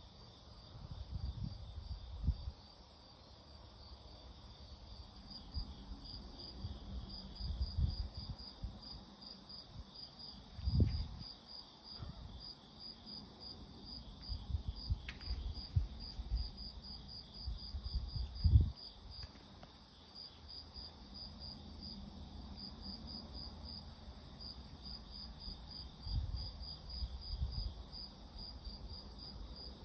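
An insect chirping steadily at a high pitch, about four chirps a second. Low thumps and rumbles on the microphone come and go, the loudest about eleven and nineteen seconds in.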